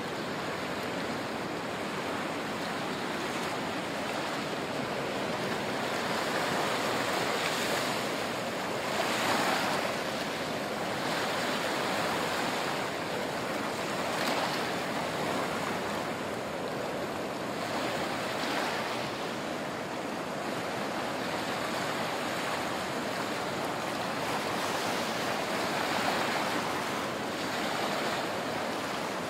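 Gentle surf: small waves breaking and washing up a sandy shore, a steady hiss that swells every few seconds as each wave comes in.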